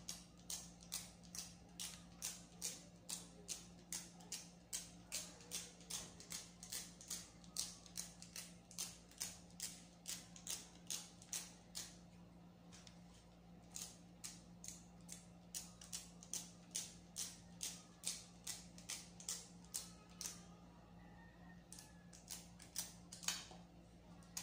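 Quick, even light ticking strokes of a small tool against a phone's plastic screen protector, about three a second, pausing about halfway through and again near the end, as she works out dust stuck beneath it. A steady low hum runs underneath.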